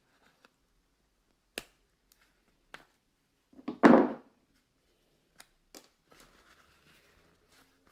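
Hand work on a plastic shift boot and its retainer piece: a few sharp clicks, a louder knock about four seconds in, then light clicks and rustling.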